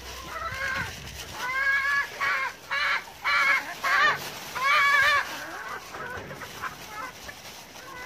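Backyard chickens calling around scattered feed: about six short, wavering calls in quick succession, starting about a second and a half in and dying down after about five seconds.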